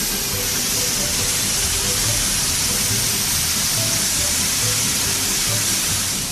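Steady hiss of water spraying from a car-wash nozzle, starting and stopping abruptly, with quiet background music underneath.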